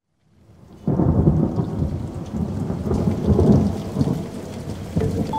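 A thunderstorm: rain falling steadily with thunder rumbling, breaking in suddenly and loud about a second in after a brief fade-up.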